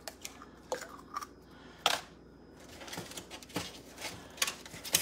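Eggs being tapped and cracked on the rim of a glass measuring cup: a scattering of sharp clicks and taps, the loudest about two seconds in.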